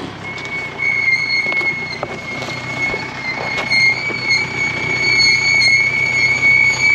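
Jeep's brakes squealing in one long, steady, high-pitched squeal as it creeps down a steep dirt track under braking, over the low rumble of its engine, with a few sharp clicks in the first few seconds.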